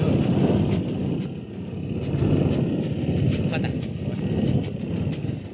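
Bajaj Dominar 400 motorcycle riding at low speed, its single-cylinder engine running under heavy wind rumble on the microphone.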